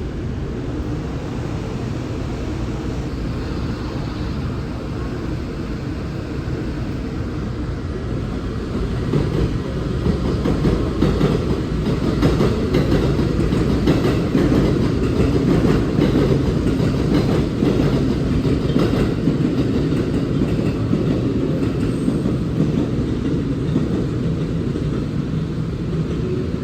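A train running along the platform, its steady rumble swelling for about ten seconds in the middle with a run of wheel clicks over rail joints.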